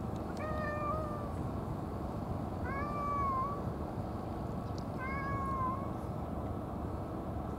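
Tabby cat meowing three times, each meow about a second long and a couple of seconds apart.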